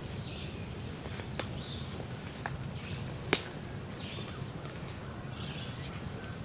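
Footsteps through dry brush and grass with a few sharp twig snaps, the loudest about three seconds in, while small birds chirp in the background.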